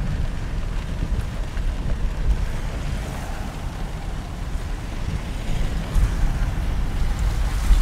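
Wind rumbling on the microphone over a steady hiss of heavy rain on a street.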